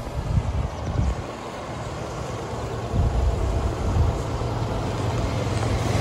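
Chevy Silverado's 2.7-litre turbocharged four-cylinder engine idling with a steady low rumble, with a few brief low bumps.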